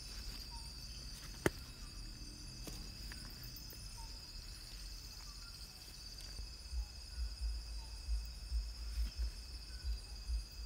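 Night chorus of insects, a steady high-pitched pulsing trill with fainter steady tones above and below it. There is one sharp click about one and a half seconds in, and irregular low thuds from about six seconds in.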